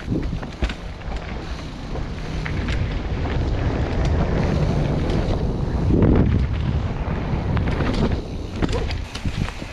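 Wind rushing over a helmet-mounted GoPro microphone during a fast mountain-bike descent, mixed with the tyres of a Specialized Enduro Expert rolling over dirt and rock and a few sharp clatters from the bike. The rush swells to its loudest about six seconds in.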